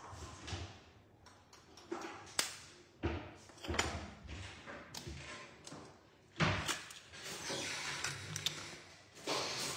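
Irregular knocks, taps and clatter of kitchen bowls and utensils being handled, with a louder thud a little past the middle.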